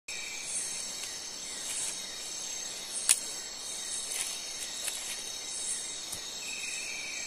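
Night insect chorus: several high, steady trills layered together, with a chirping pulse repeating about once a second. A sharp click about three seconds in is the loudest sound, with a few fainter ticks later.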